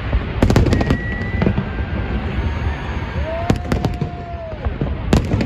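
Aerial fireworks shells bursting in quick succession: a continuous low rumble of booms with sharp cracks, the sharpest a little after the start, around three and a half seconds in, and near the end. A steady whistle-like tone is held for about a second past the middle.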